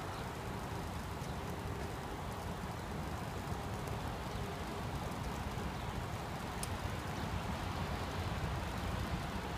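Distant rumble of an approaching electric multiple-unit commuter train over steady outdoor noise, growing slightly louder near the end.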